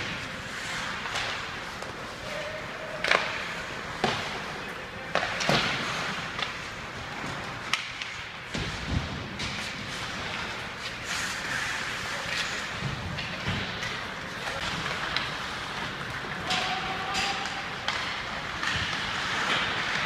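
Ice hockey play: skates scraping on the ice, with irregular sharp knocks of pucks and sticks striking and bodies hitting the boards.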